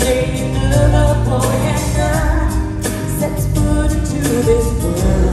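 Live pop band music with singing over a steady bass and beat.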